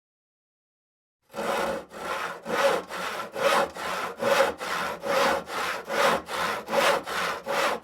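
Hand saw cutting through wood in even back-and-forth strokes, about two and a half a second, starting about a second in.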